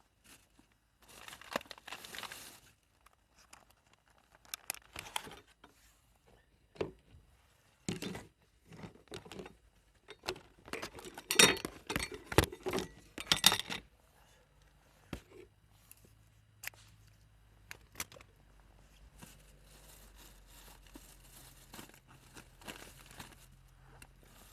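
Plastic packaging crinkling and tearing, with scattered clicks and knocks as small items are handled. The handling is busiest around the middle. A faint, steady low hum sets in after the middle.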